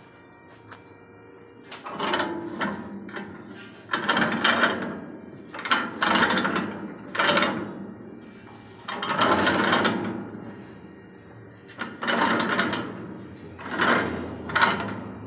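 Steel pinion and large spur gear of a home-built steering gearbox grinding as the steering shaft is turned back and forth: a series of rasping strokes, each about a second long, starting about two seconds in.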